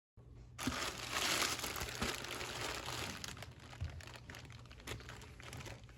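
Packaging crinkling and rustling as a parcel is handled and opened, with many small irregular crackles; louder in the first couple of seconds, then softer.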